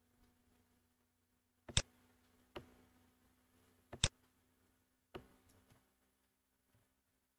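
Computer mouse clicking: four sharp clicks a second or so apart, over a faint steady hum.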